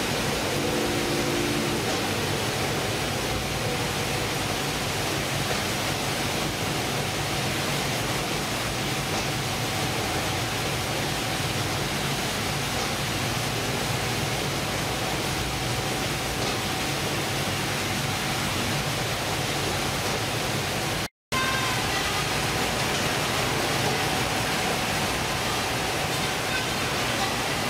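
Steady, even din of fish-processing machinery running on a catcher/processor's factory deck, with conveyors and processing machines carrying cod. The sound drops out for a split second about three-quarters of the way through, then the same din carries on with a few faint steady whines added.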